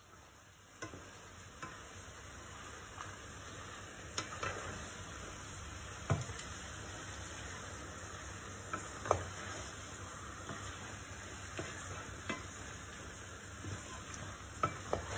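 Wooden spatula stirring chicken and biriyani masala in a pan over the flame, with a steady sizzle of frying underneath and irregular scrapes and knocks of the spatula against the pan.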